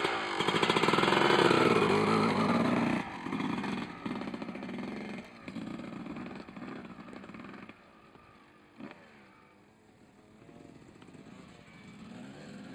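Yamaha YZ two-stroke motocross bike revving hard as it pulls away, loudest in the first three seconds, then surging in bursts and fading as it rides off, its faint engine note rising and falling with the throttle near the end.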